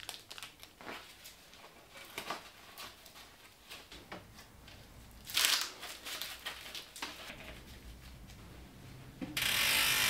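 Clear plastic packaging crinkling and a neoprene chainstay protector being handled and wrapped around a bicycle chainstay: scattered soft rustles and crackles, with a louder tearing rip about five and a half seconds in. Near the end a louder steady hiss starts.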